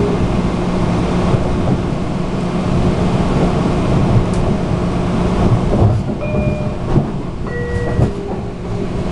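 Metro-North Harlem line electric commuter train heard from inside a passenger car at speed: a steady hum and rumble of the running gear and wheels on the rails, with a few knocks from the track about six to eight seconds in.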